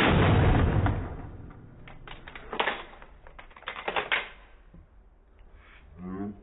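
A 12-gauge shotgun shot that fades out over about a second, followed by two bursts of rapid clicking and clacking.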